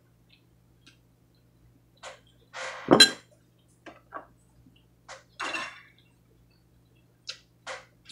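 Ceramic dishes and cutlery clinking and knocking against each other and the table in a string of separate clinks and short scrapes, the loudest, ringing clink about three seconds in. A faint steady low hum lies underneath.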